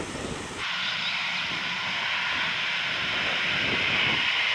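Jet airliner's engines running with a steady hissing whine that slowly grows louder as the aircraft lines up on the runway. A low rumble gives way to it abruptly about half a second in.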